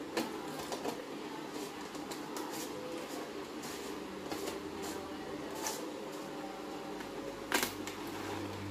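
A plastic jar and its screw-on plastic lid being handled and fitted together, giving scattered light clicks and knocks, the loudest about two thirds of the way through, over a faint steady hum.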